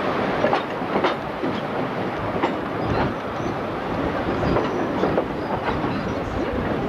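Sóller tram running along its track: a steady rumble from the car with irregular sharp clacks from the wheels on the rails.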